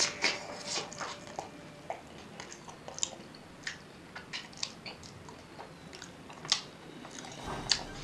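Close-up eating sounds of a giant samosa: a bite into the fried pastry at the very start, then irregular chewing with wet mouth clicks and a few sharper crunches.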